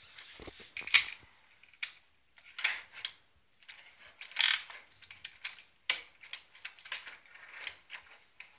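Hard plastic toy parts clicking, snapping and rattling as the pieces of the figure are handled and fitted together, with a few ratchet-like clicks from its joints.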